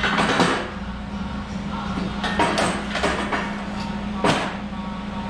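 Steel parts knocking and clanking against a steel welding table and bench vise as they are set in place, with a few short scrapes. The loudest knocks come right at the start and about four seconds in, over a steady low hum.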